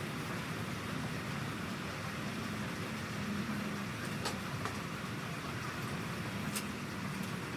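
Old sawmill machinery running steadily with a low hum, with a couple of faint clicks partway through.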